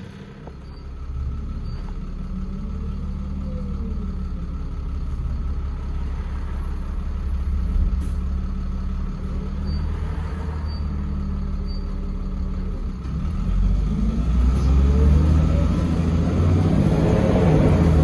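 Trident double-decker bus with Optare Olympus body, heard from inside on the lower deck: the engine and drivetrain rumble steadily. About two-thirds of the way in it gets louder and rises in pitch as the bus accelerates.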